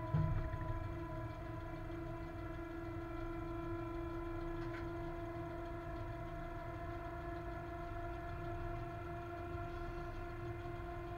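Inside the cab of a ČD Cargo class 130 electric locomotive under way: a steady hum of the locomotive's machinery over a low rumble of the wheels running on the track. A short heavy thump comes right at the start, and a faint click about halfway through.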